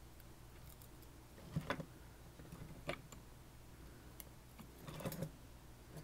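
A few faint, light clicks of metal tweezers against small parts of a disassembled Banham lock as its tiny springs are picked out.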